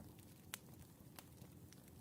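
Faint wood fire crackling: a low steady rumble with a few sharp pops, the loudest about half a second in and another a little after a second.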